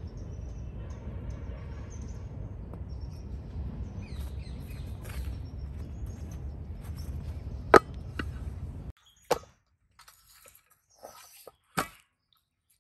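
Open-air yard ambience with a steady low rumble and birds chirping, and a sharp knock a little after the middle. The rumble then cuts off suddenly, leaving a few sharp clicks and knocks.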